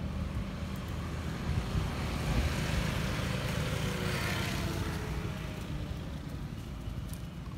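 A motorbike passing along the road, its noise swelling to a peak about four seconds in and then fading away.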